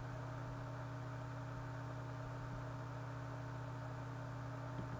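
Steady low electrical hum over a hiss, with one faint click near the end.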